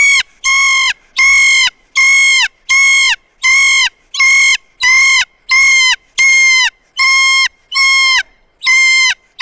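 Kea calling loudly over and over: a steady run of shrill, even calls, about one and a half a second, each dipping in pitch at its end.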